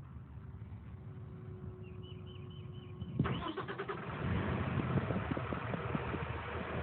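Diesel engine of a Cat 320EL hydraulic excavator starting: a short series of high chirps, then about three seconds in the engine cranks and catches abruptly. It then runs unevenly and grows louder.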